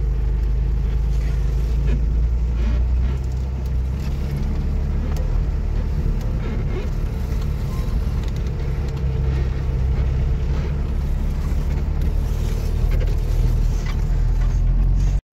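Car driving, heard from inside the cabin: a steady low rumble of engine and road noise with a constant hum.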